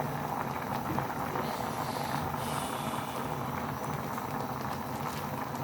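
A pot of water boiling steadily on the stove, a continuous bubbling.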